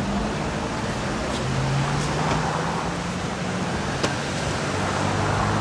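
Street traffic noise: a steady wash of sound with a low engine hum that sets in about a second and a half in.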